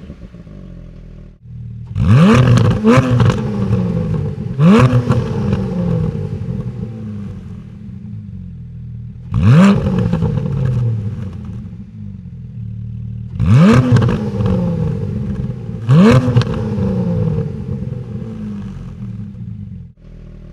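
2020 Porsche 718 Cayman GT4's 4.0-litre flat-six exhaust as the engine is revved in place: about seven sharp throttle blips in clusters, each rising quickly and falling slowly back to idle.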